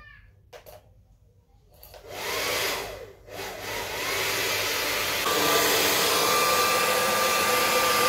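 Handheld hair dryer switched on about two seconds in, blowing with a steady rush of air and fan whine. It grows louder about five seconds in, with a steadier whine.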